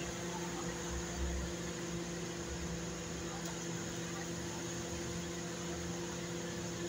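Steady mechanical hum: several held tones over an even hiss.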